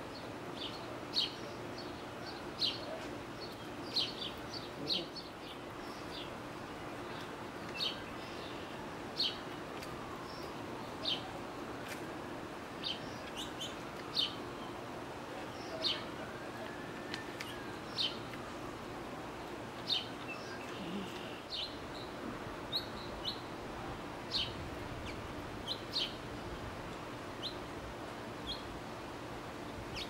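Small songbirds chirping: short, sharp, high chirps repeated every second or two, over a faint steady background hum.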